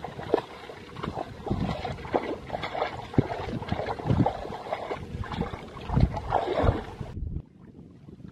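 Hands splashing and sloshing through shallow muddy water, in irregular splashes and dull thuds, dropping away sharply near the end.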